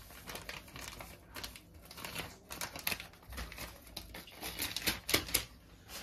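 A thin plastic bag crinkling and rustling as powder is shaken out of it into a metal pot, with many irregular light clicks and crackles.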